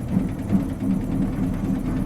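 Diesel engine of an Isuzu Cubic KC-LV380N city bus running, heard from inside the cabin as a low, uneven rumble.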